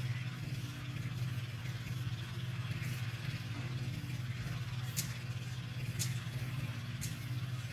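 A motor running steadily with a low hum, and three sharp clicks about a second apart in the second half.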